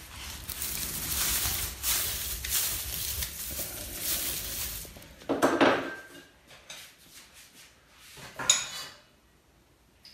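Metal spatula scraping and clattering in a wok for about five seconds as the cooked stir-fry is scooped out, then two sharp clinks of bowls and a spoon as the food is dished up.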